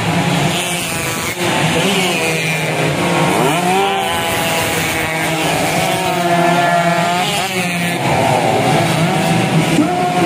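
Stock two-stroke underbone motorcycle engines revving hard, their pitch climbing and dropping again and again as more than one engine runs at once.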